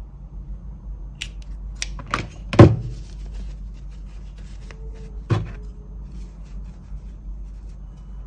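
Large fabric scissors snipping notches into the seam allowance of a sewn cotton doll bodice, with a few sharp snips and knocks as the scissors work and are set down on the table, the loudest about two and a half seconds in. Afterwards there is soft rustling as the fabric is handled and turned, over a low steady hum.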